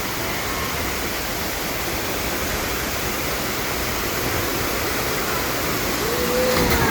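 Rushing river water, a steady full noise, with a faint voice near the end.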